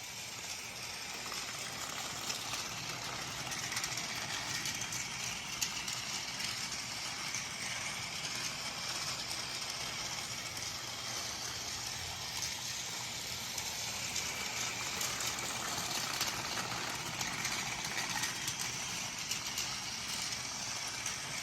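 Plarail Thomas battery-powered toy train running on plastic track: its small motor whirs steadily, with the light rattle of the train and its coupled cars rolling along the track.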